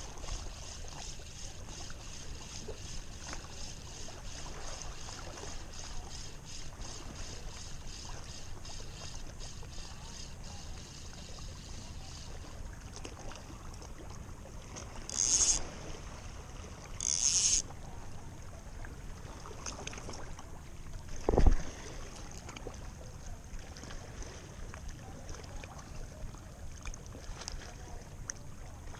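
Sea washing against shore rocks, with wind on the microphone. Over it, a spinning reel is cranked as the lure is retrieved, giving a fast, even ticking for the first dozen seconds. About halfway through come two short hissing sounds, and a few seconds later a single loud knock.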